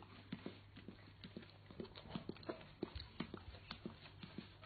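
Doberman pinscher licking and smacking its lips to work peanut butter off its nose: a soft, irregular run of wet clicks, a few a second.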